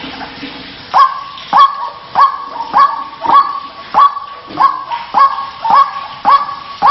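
White-breasted waterhen (ruak-ruak) calling: a fast run of harsh "kruwaak" calls, starting about a second in and repeating evenly about every 0.6 s, about ten in all. It is a lure call used to draw the bird out of hiding.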